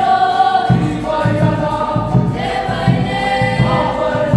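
A large group of young voices singing a Cook Islands song together in parts, with long held notes. A steady low beat of accompaniment comes in about a second in, pulsing about three times a second.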